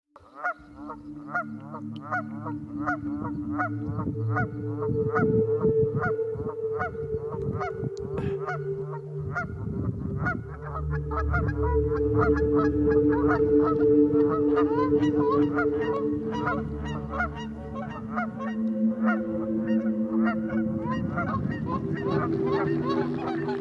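Geese honking over and over, many calls coming fast and overlapping, with steady low droning tones underneath.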